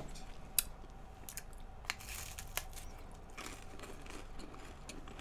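Crisp puff-pastry stick (a long Nunettine) being bitten and chewed close to the microphone: faint flaky crunches and crackles with a few sharp clicks.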